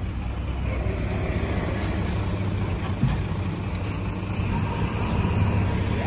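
Diesel engine of a Komatsu D20A bulldozer running steadily, with a single click about three seconds in.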